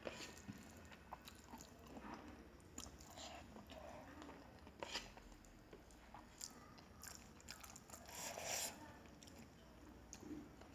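A person chewing a mouthful of rice and curry, with faint wet mouth sounds and small clicks, a little louder about eight seconds in.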